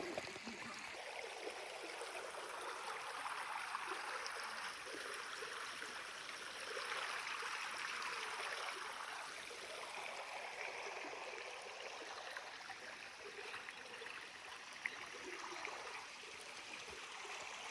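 Running water, a steady splashing rush that swells a little about seven seconds in.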